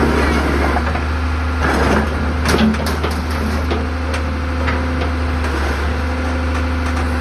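Diesel engine of an old Hitachi UH045-5 hydraulic excavator idling steadily, with a few short knocks about two and a half seconds in.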